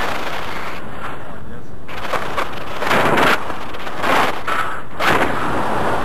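Wind rushing and buffeting over the camera's microphone in the airflow of a tandem paraglider in flight: a loud, steady roar of noise with gusts swelling about three, four and five seconds in.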